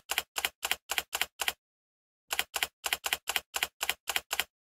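Typewriter sound effect of evenly paced key strikes, about four a second, keeping time with letters typed onto a title. It pauses for under a second after about a second and a half, then resumes for about nine more strikes and stops just before the end.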